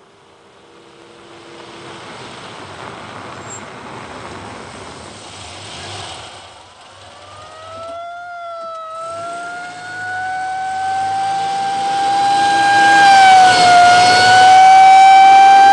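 An emergency-vehicle siren: at first only a vehicle's approaching rumble, then about six and a half seconds in a siren starts low, glides up and settles into a long, steady wail with a brief dip in pitch near the end, growing loud as it nears.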